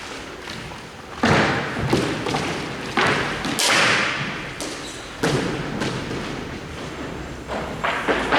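Hockey play in a large echoing rink: about six sharp knocks and slams at irregular spacing, each ringing out briefly, with a short hiss a little past the middle.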